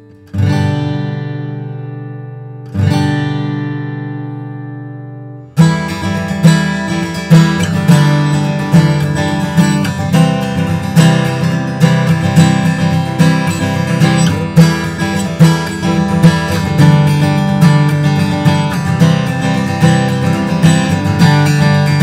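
Martin HD-28 short-scale rosewood-and-spruce dreadnought acoustic guitar: two single strummed chords left to ring and fade, then steady rhythmic chord strumming from about five and a half seconds in.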